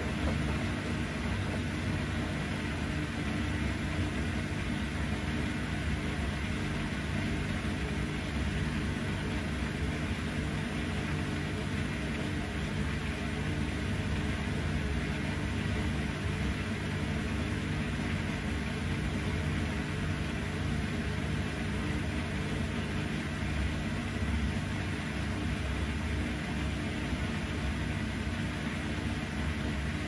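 Bosch Series 6 i-dos front-loading washing machine running its wash tumble: a steady motor hum under the swish of a load of wet fleece hoodies turning in the drum.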